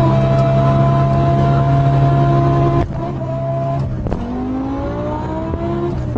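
High-performance car engine accelerating hard. It holds steady high revs for nearly three seconds, then drops in pitch at a gear change about three seconds in and again about four seconds in, each time climbing again.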